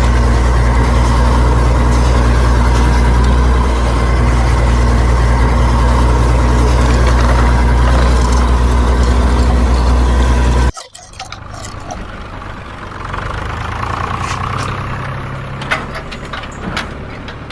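An engine idling steadily with a deep, even throb. It cuts off abruptly about eleven seconds in, leaving a much quieter mix of sounds with a few clicks.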